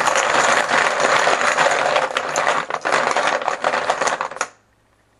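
Poker-style chips clattering as a hand stirs them around inside a cup, shuffling them to draw one at random. It is a dense run of clicks that stops about four and a half seconds in.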